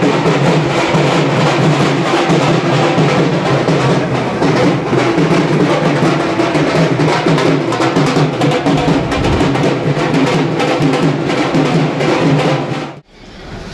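Loud music driven by drums and percussion, with a steady beat; it stops abruptly near the end.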